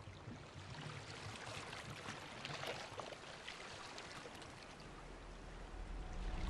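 Faint fizzing and gurgling of churned sea water as the foam and bubbles of a whale bubble net break up at the surface. A low rumble comes in near the end.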